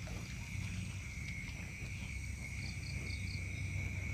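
Steady high-pitched insect chorus, one constant drone, with four short high chirps just after the middle and a low rumble underneath.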